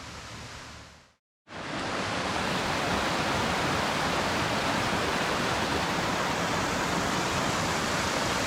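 Steady, even rushing noise, cut off briefly a little after a second in and back louder from about a second and a half, then running on unchanged.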